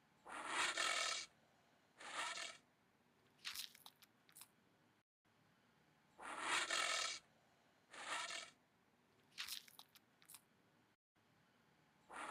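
Looped sound effect for a cartoon anteater: raspy, crunching bursts in a fixed pattern, one long, one shorter, then two brief ones, repeating about every six seconds.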